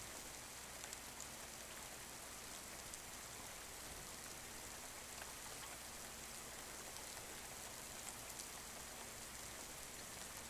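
Faint steady hiss of room tone and recording noise, with a few faint ticks.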